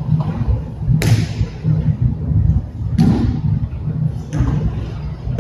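Aikido breakfalls: bodies and hands slapping down hard on the training mats as the attacker is thrown. Three sharp slaps come about a second in, about two seconds later, and again at the end, over a steady low rumble.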